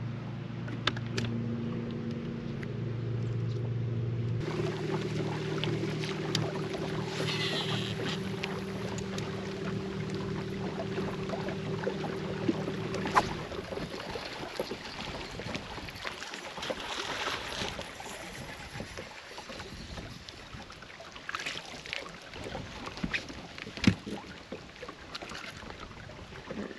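Electric bow-mounted trolling motor humming, its pitch stepping a few times, until it stops about halfway through. Then wind and water noise with scattered clicks and knocks while a bass is fought and brought aboard, one sharp knock loudest near the end.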